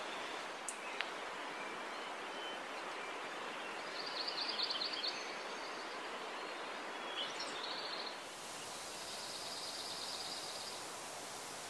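Steady rushing of a mountain stream, with a small bird singing short, rapid high trills over it, about four seconds in and again after about eight.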